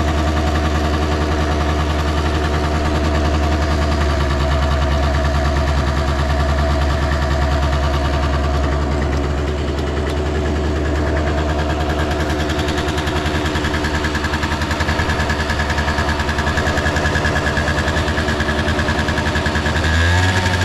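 Honda Live Dio scooter's 50 cc two-stroke single-cylinder engine idling steadily, its pitch starting to rise right at the end as the throttle opens. It runs with what the seller calls no abnormal noise.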